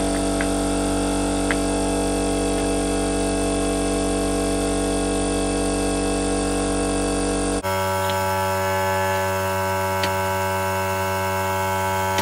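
Electric air compressor running with a steady hum, with a few faint clicks. Its tone changes abruptly about two-thirds of the way through.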